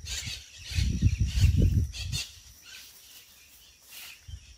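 Low rumble on the phone's microphone, loudest in the first half, over rustling of bushes against the phone and a steady high insect drone.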